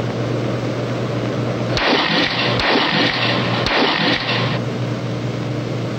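Three sharp shotgun reports from Remington 1100 autoloading shotguns at a trap range, about a second apart, between roughly two and four seconds in. They sound muffled, over the steady hum and hiss of an old film soundtrack.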